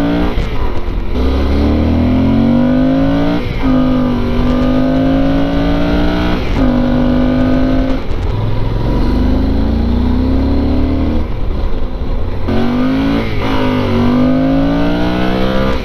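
Yamaha Super Ténéré's 1200 cc parallel-twin engine through its stock exhaust, pulling under throttle: the pitch climbs, then drops sharply at each upshift, several times.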